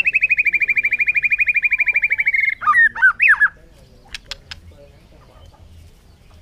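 White-rumped shama singing: a fast rattling trill of about fifteen notes a second, slowly falling in pitch, ending about two and a half seconds in, followed by a few loud swooping whistled notes. A few short clicks come about four seconds in.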